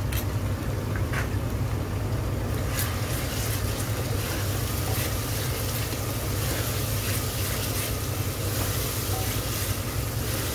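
Onions with ginger-garlic and green chilli paste frying in mustard oil in a pressure cooker: a steady sizzle, with a wooden spatula stirring through it, over a steady low hum.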